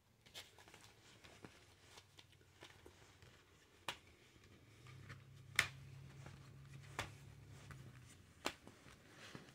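Plastic Blu-ray cases being picked up, shuffled and set down on a stack: scattered light clicks and taps, the sharpest about halfway through. A faint low hum comes in for a few seconds in the second half.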